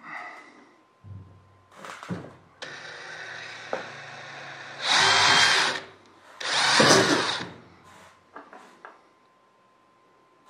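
Cordless drill whirring, then drilling two holes through thin .025 aluminum wing skin: two loud grinding bursts of about a second each, a second and a half apart. A few light clicks follow.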